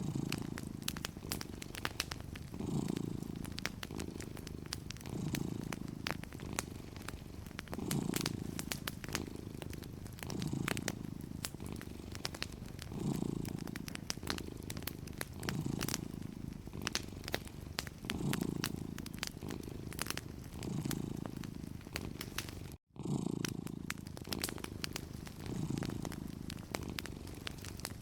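A cat purring, the purr swelling and easing in a slow even rhythm with its breathing. Light crackles and snaps of a wood fire sound over it. All sound cuts out for an instant about three-quarters of the way through.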